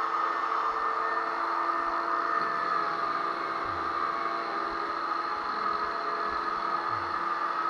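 Power sander motor running steadily with a continuous whir, used for sanding drywall joint compound.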